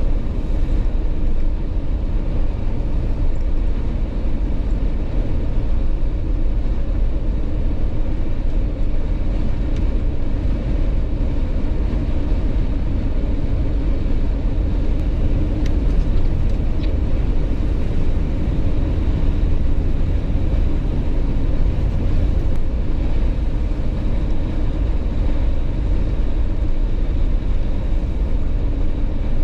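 Steady driving noise of a Jeep at road speed: a constant low rumble of engine, tyres and wind that holds even throughout.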